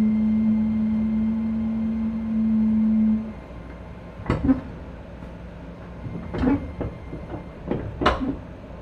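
Keisei 3050 series train's Toyo Denki IGBT-VVVF inverter drive, heard inside a motor car, holding a steady hum that cuts off about a third of the way in. Then come three sharp knocks a couple of seconds apart over the low rumble of the running car.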